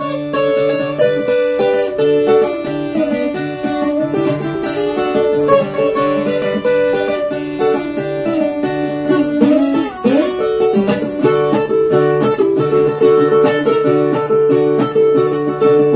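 Viola caipira, the ten-string Brazilian folk guitar with paired strings, played solo: a rhythmic instrumental tune of picked and strummed notes.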